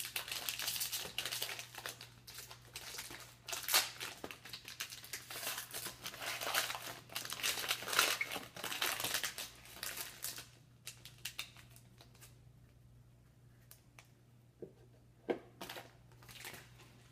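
Foil trading-card pack crinkling and crackling as it is torn open and handled for about ten seconds, then a few soft clicks as the cards are set down.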